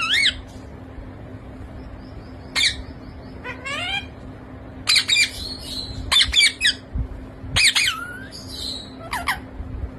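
A pet parrot calling in short, shrill squawks, about seven separate calls with gaps between them, some sliding up or down in pitch.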